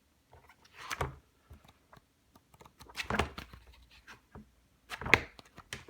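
Paper and packaging being handled: a few short rustles and light knocks, the loudest about five seconds in.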